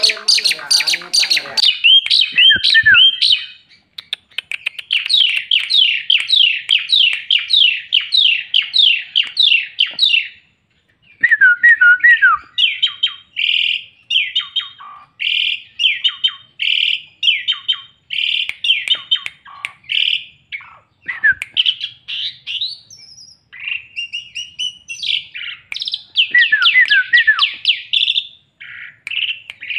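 Asian pied starling (jalak suren) singing loudly: fast runs of sweeping, chattering whistles, repeated in bursts with short pauses between them.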